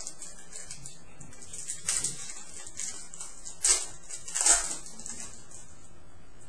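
Foil card-pack wrappers crinkling and being torn open, with two loud rips about three and a half and four and a half seconds in.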